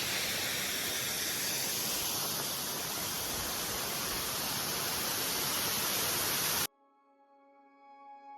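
Steady rushing noise of a tall waterfall heard close to its base. It cuts off abruptly about three-quarters of the way through, and quiet background music with long held notes fades in.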